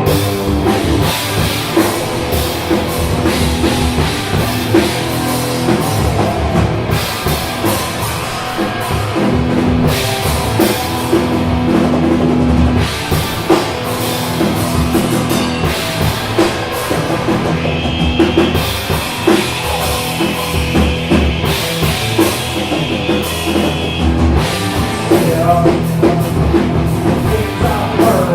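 Rock band playing an instrumental passage, with a busy drum kit and guitar. A high tone is held for several seconds past the middle.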